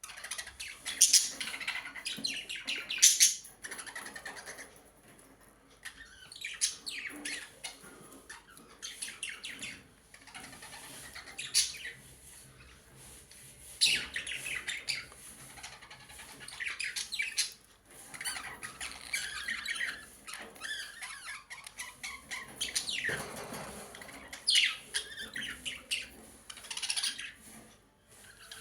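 Birds chirping and squawking in irregular bursts, with short pauses between calls.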